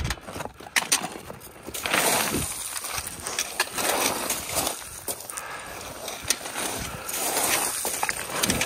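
Boots crunching and sliding on loose scree and trekking-pole tips clicking against rock on a steep climb. Several sharp clicks come in the first two seconds, then longer rough crunching swells every second or two.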